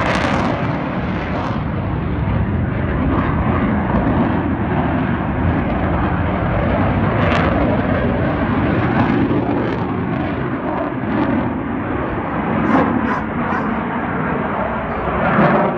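Jet noise from an Aermacchi MB-339 aerobatic jet flying overhead: a steady, loud rushing sound that keeps going, with a few short clicks near the end.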